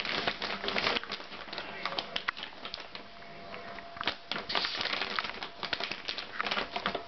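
Yorkshire terrier biting and tugging at a plastic bag of multipurpose compost, the plastic crinkling and crackling in irregular bursts, busiest in the first second and again from about four seconds in.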